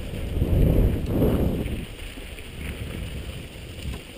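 Wind buffeting a helmet-mounted camera's microphone during a fast mountain-bike descent, mixed with the bike's rumble over the dirt trail. It is loudest for about the first second and a half, then eases.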